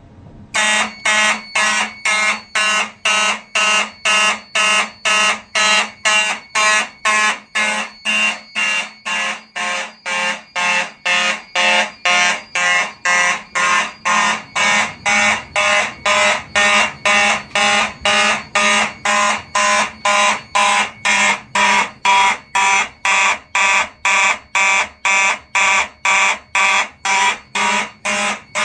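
Four Simplex 4903 mechanical fire alarm horns sounding together in march time, blaring on and off about twice a second, starting about half a second in.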